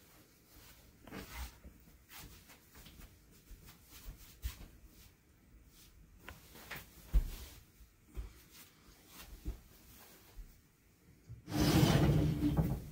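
Soft footsteps and clothing rustle on tatami mats, then a wooden sliding door at the tea room's host entrance is slid along its track for about a second and a half near the end.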